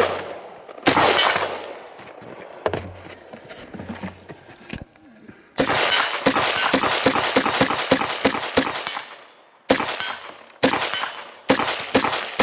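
WWSD2020 AR-15-type rifle in 5.56 NATO firing rapidly in semi-automatic: a single shot about a second in, then a fast string of shots lasting some three seconds, followed by several more evenly spaced shots near the end, each with a trailing echo.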